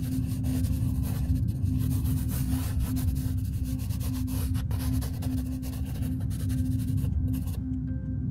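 A pen scratching across paper in quick strokes, over a loud, low, steady hum. The scratching stops shortly before the end.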